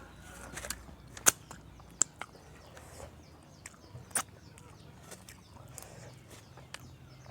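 Eating close to the microphone: scattered sharp crunching clicks, the loudest a little over a second in, at about two seconds and at about four seconds.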